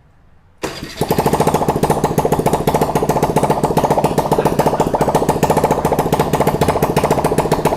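Honda Navi's small single-cylinder engine starting about half a second in and running with no exhaust fitted, open straight from the head: a loud, steady, rapid train of sharp pulses.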